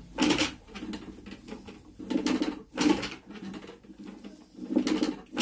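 Traditional rope-pulled wooden churn spinning back and forth in a clay pot of curd, the stick swishing and sloshing through it in paired surges about every two and a half seconds.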